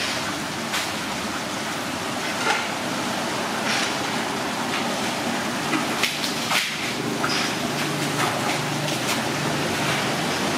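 Steady background noise with scattered short clinks and knocks.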